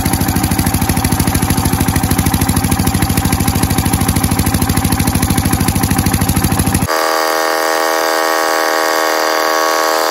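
Generator engine running with a fast, even chugging pulse. About seven seconds in, the sound changes abruptly to a steady hum without the low thump.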